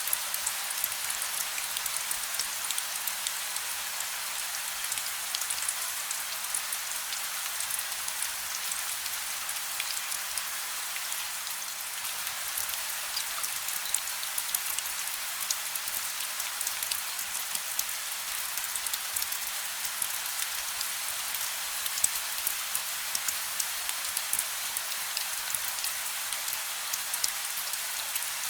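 Steady gentle rain: an even hiss with many small drop ticks on a surface, no thunder.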